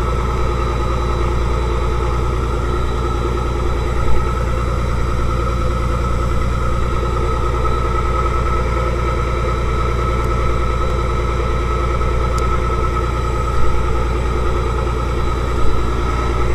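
Fishing boat's engine running steadily at a constant speed, with a few light knocks from handling the catch on deck, about four seconds in and twice near the end.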